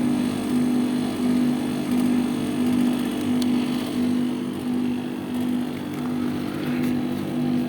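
2.5-ton split AC outdoor unit running with its compressor and fan, a steady low hum that swells and fades about one and a half times a second. It is running normally again after its burnt main power cable was rejoined with a new connector, the compressor drawing about 10 amps.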